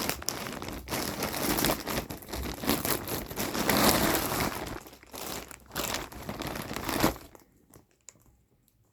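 Packaging crinkling and rustling as a package is handled and pulled open by hand, with many small crackles; it stops about seven seconds in.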